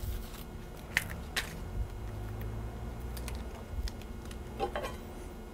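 Faint crinkly crackles of dry onion skin being peeled off a half onion by hand, a few scattered clicks about a second apart.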